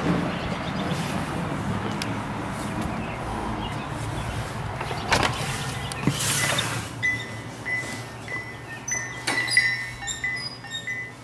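Steady outdoor background noise with a low rumble, broken about five to six seconds in by a few knocks and a short rush of noise. Then light music begins, made of short, repeated high chiming notes.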